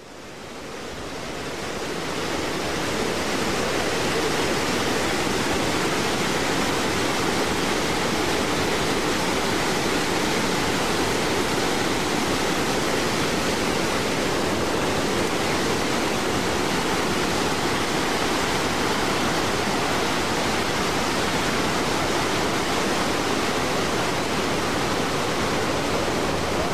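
Large waterfall on the Iskanderkul river, a 43 m drop, giving a loud, steady rush of falling water that fades in over the first few seconds.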